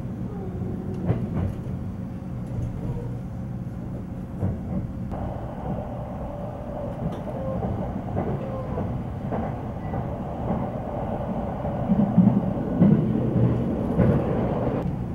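Cabin noise inside an E657-series limited express train under way: a steady rumble of wheels on rail with scattered clicks from rail joints, growing louder about twelve seconds in.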